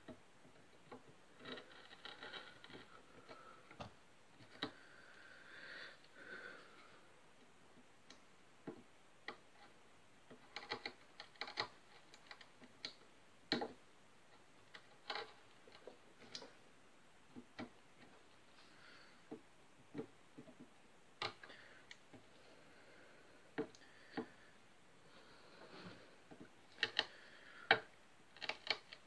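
Small wood chisel paring and nibbling wood out of a guitar headstock by hand. Irregular sharp ticks and clicks come from the tool, with a few short scraping strokes between them.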